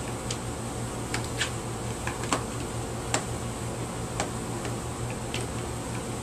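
Scattered light clicks and taps of a screwdriver on a small vacuum cleaner's plastic housing as it is unscrewed and taken apart, about eight at uneven intervals, over a steady low hum.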